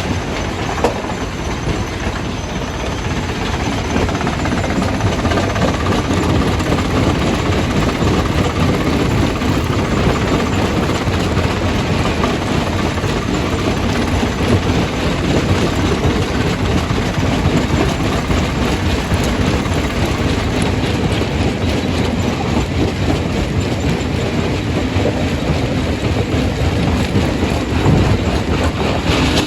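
Jaw crusher crushing stone: a loud, continuous clatter and grinding of rock packed with small knocks, keeping up steadily throughout.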